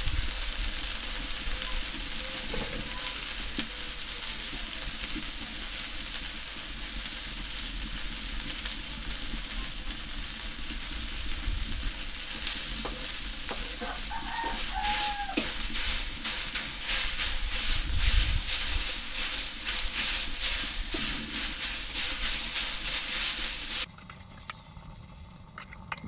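Leafy greens frying in an aluminium kadai, with a steady sizzle. About halfway in, a metal spatula starts stirring and scraping the pan at about two strokes a second, and a rooster crows once. The sound drops away sharply near the end.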